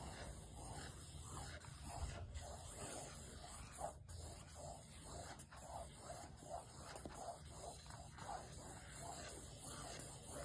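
Felt-tip sketch pen scribbling round and round on a paper drawing pad, a soft swish with each stroke, about two strokes a second.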